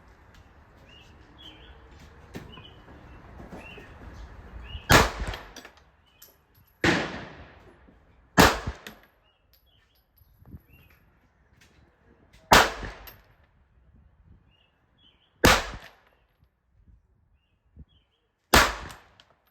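Six handgun shots fired one at a time at a slow, uneven pace, one to four seconds apart, each followed by a brief echo.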